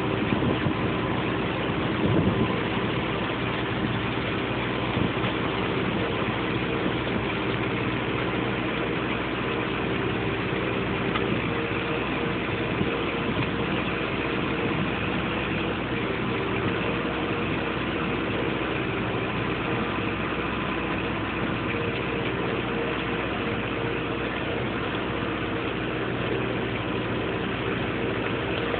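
Bizon combine harvester's engine and machinery running steadily while it harvests grain, with a short knock about two seconds in.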